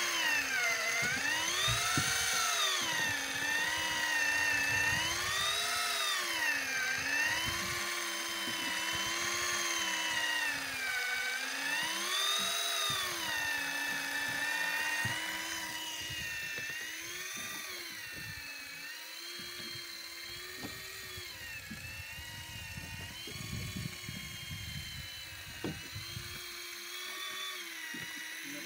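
Daiwa Tanacom 1000 electric fishing reel's motor whining as it winds line up from about 70 m. Its pitch rises and falls every few seconds as the load on the line changes, and it grows quieter in the second half.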